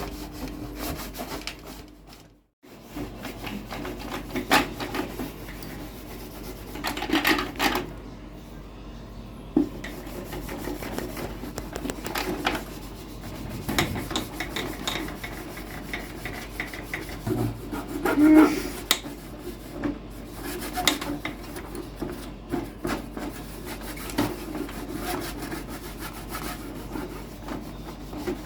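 Hand rubbing and scraping on a Sony CFS-1058S radio cassette recorder as it is cleaned, with scattered clicks and knocks and a brief break about two seconds in.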